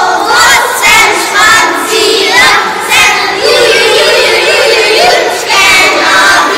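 Many children's voices at once, loud and overlapping, with one voice held on a steady pitch for a couple of seconds in the middle.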